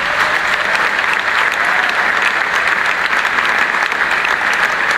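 A large concert-hall audience applauding, a dense steady wash of clapping from thousands of hands.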